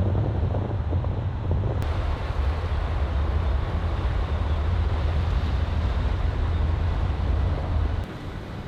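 Moving car's road and wind noise: a steady low rumble under a broad hiss, the hiss turning brighter about two seconds in, and everything dropping away near the end.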